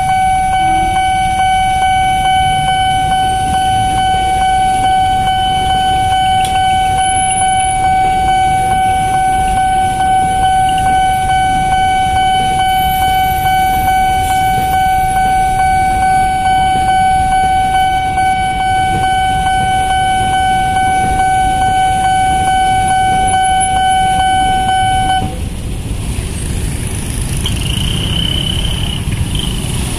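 Railway level-crossing warning alarm sounding one steady tone over the low rumble of a commuter train passing and idling motorbikes and cars. The alarm cuts off suddenly about 25 seconds in as the barriers lift, leaving traffic noise and a short high beep near the end.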